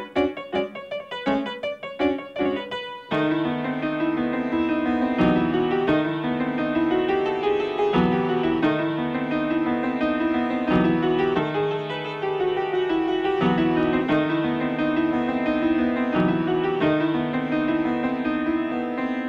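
Piano accompaniment in silent-film style: quick detached notes for about three seconds, then a smoother tune of held notes and chords.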